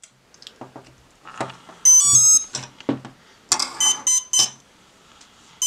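Hobby brushless ESC start-up beeps sounded through the small outrunner motor on power-up: a quick rising run of tones about two seconds in, a few short beeps around four seconds, and another beginning at the very end. Light clicks of the wiring being handled come between them.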